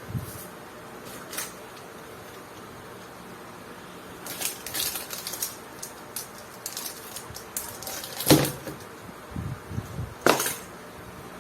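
Kit parts and packaging being handled: scattered rustling and light clicks, with two sharper knocks about eight and ten seconds in.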